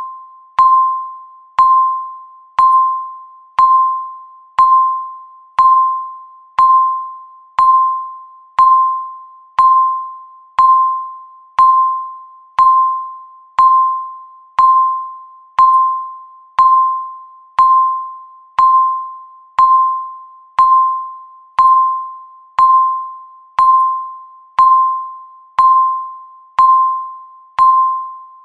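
Countdown timer's ticking sound: a sharp, bell-like tone struck once a second, each ringing out and fading before the next.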